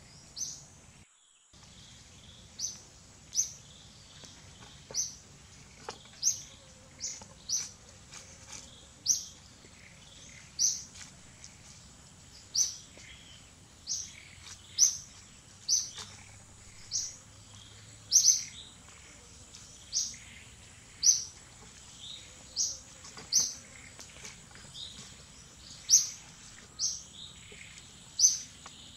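A bird repeating a short, high-pitched chirp roughly once a second, over a faint steady high whine and low background hiss. The sound briefly drops out about a second in.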